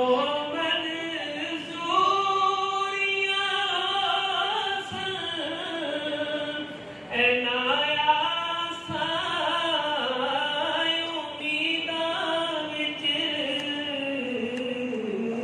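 A man's voice singing a naat unaccompanied into a microphone, in long, drawn-out, ornamented lines. There is a short break between two phrases about seven seconds in.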